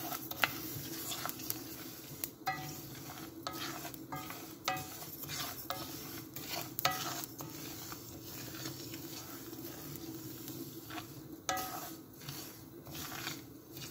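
Wooden spatula stirring dry millet grains in a stainless steel pan as they toast over low heat: repeated scraping strokes with the grains rustling against the metal, over a steady low hum.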